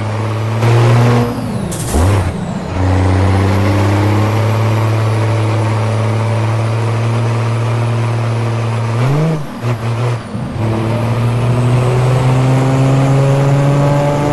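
Scania V8 truck engine on a straight-through exhaust, running hard with a deep, steady note. The pitch drops and picks up again twice in the first two seconds and once about nine seconds in, then climbs steadily toward the end. Two short hisses of air come in the first two seconds.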